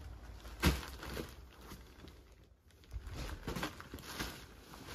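Faint rustling of cushions being handled, with one short sharp knock a little under a second in and softer rustles later.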